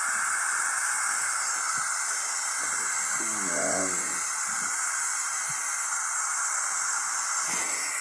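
Steady hiss with no change in level. A brief murmured voice comes in about three seconds in.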